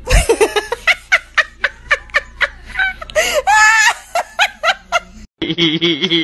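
A person laughing in quick repeated bursts of snickers and giggles, with one longer high-pitched peal about three seconds in. Near the end it breaks off and a steady wavering tone takes over.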